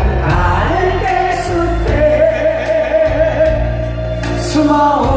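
Voices singing a slow Korean ballad, drawing out the line "쓸쓸한 갈대숲에", over an instrumental backing track with a steady bass and light, regular high percussion.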